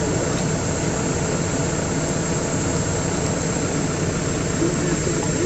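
Steady low hum of an engine idling, unbroken throughout.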